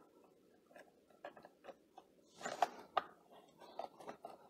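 Screwdriver turning out a screw from a plastic hand mixer's housing: faint, scattered clicks and scraping, with a brief flurry of louder clicks about two and a half to three seconds in.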